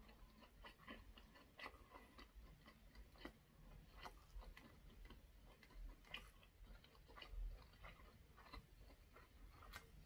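Close-up chewing of a soft mouthful of braised fish and aged kimchi: faint, irregular wet clicks and smacks from the mouth, a few a second.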